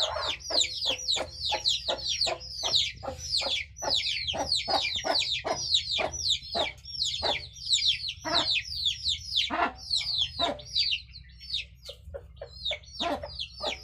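Desi chickens calling: a rapid run of short, high, falling peeps, several a second and overlapping, that thins out briefly near the end before picking up again.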